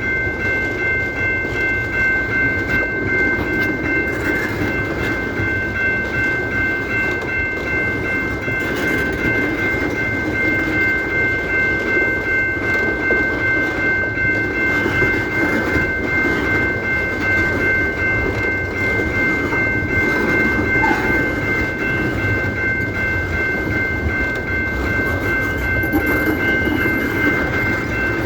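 Train running, with a steady rumble and a high, unbroken ringing tone held throughout.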